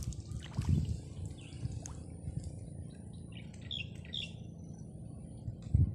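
A small bird chirping a few short times, clustered about two thirds of the way in, over a constant low rumble on the microphone with a few louder low thumps.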